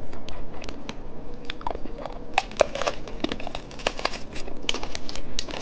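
Plastic candy packaging crinkling and crackling as it is handled, with many irregular sharp crackles.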